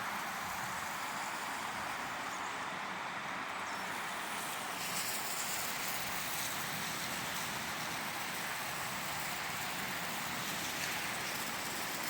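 Steady road traffic noise: an even hiss of tyres and engines from vehicles passing on a busy road.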